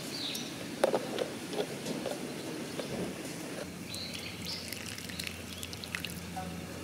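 Hot water poured from a kettle onto matcha powder in a ceramic tea bowl, the pour starting a little past halfway and running steadily; a few light clicks of tea things being handled before it.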